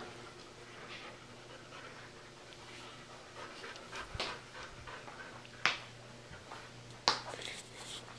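A dog panting, with two sharp knocks, one a little past the middle and one near the end, that are the loudest sounds.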